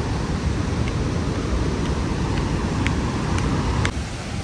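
Steady rushing roar of Victoria Falls, with a heavy low rumble of wind buffeting the microphone. A few light clicks come in the second half, and the noise drops a little near the end.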